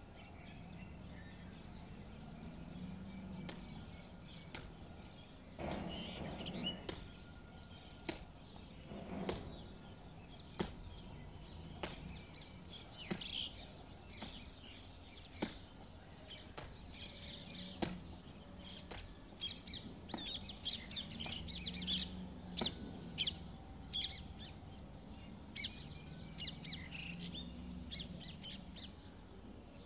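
Birds chirping and calling, sparse at first and busier in the second half, with many short sharp chirps and a faint low hum underneath.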